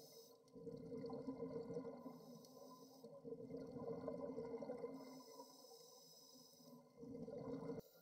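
Scuba exhalation bubbles gurgling, heard underwater, in three faint bursts of about two seconds each with short pauses between.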